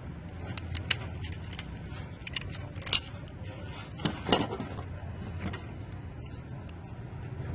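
Irregular small clicks and taps, the clearest about three and four seconds in, over a steady low hum.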